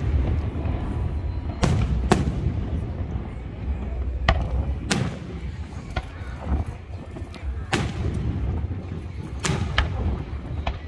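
Aerial fireworks shells bursting: about eight sharp bangs at uneven intervals, two of them close together near the end, over a steady low rumble.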